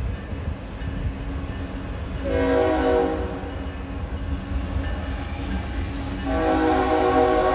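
Train horn sounding a short blast about two seconds in, then a longer blast starting near the end, over a low steady rumble.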